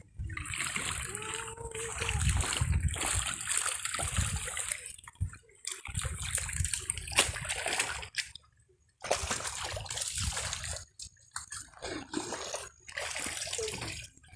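Water splashing and sloshing in a shallow fish pond that is being drained, with a few short breaks.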